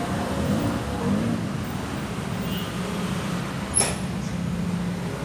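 Steady low background rumble, with a single sharp click a little under four seconds in.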